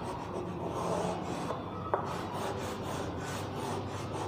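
Chalk rubbing on a chalkboard in short repeated strokes as an area of a drawing is coloured in, with one brief sharp tick about two seconds in.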